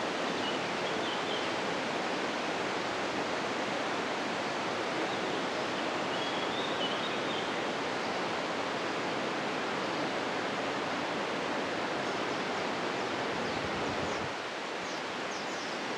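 Steady rushing of the Río Veral, a young mountain river flowing through a limestone gorge; it drops a little in level near the end.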